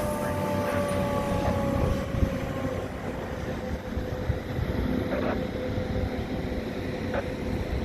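Fire engine running: a steady low engine rumble, with a high tone that slowly falls in pitch over the first three seconds and then holds steady.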